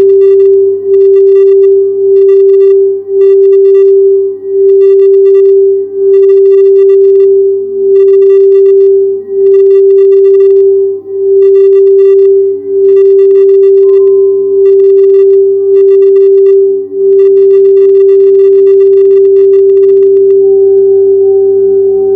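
Quartz crystal singing bowl sounding one sustained, pure tone that swells and dips about every second and a half, beginning to fade near the end.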